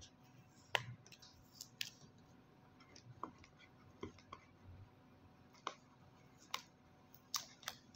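Fingernails picking at the seal sticker of a cardboard smartphone box and handling the box: scattered sharp clicks and light scratches, the loudest click about a second in and a cluster near the end.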